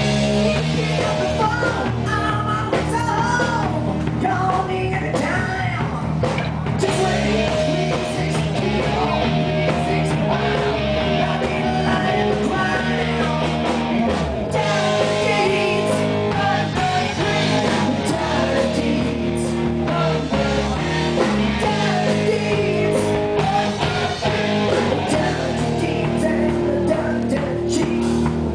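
Rock band playing live: a singer at the microphone over electric guitar and drums.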